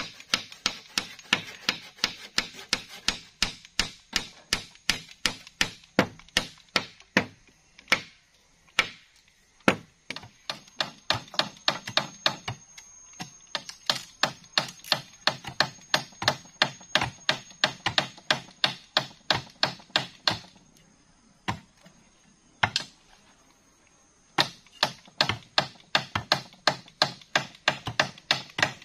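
Wood being chopped by hand with a blade: rapid, even blows, about three to four a second, with a short break about a third of the way in and a longer one about three-quarters of the way through.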